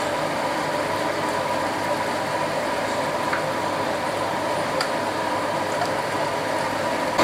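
Steady kitchen hum and hiss as a pot of cassava-leaf gulai in coconut milk simmers on the stove, with a few faint clicks as a plastic ladle stirs it.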